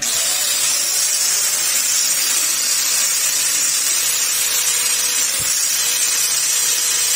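Angle grinder running steadily with its disc pressed against sandpaper, a constant high hiss of abrasion.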